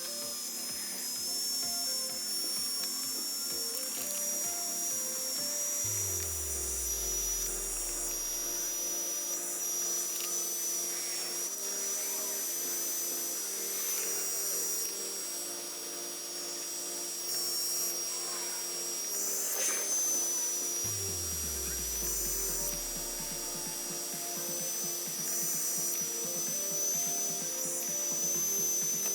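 Background music: an electronic track with a pulsing beat and two deep falling bass swoops, about six seconds in and again about twenty-one seconds in.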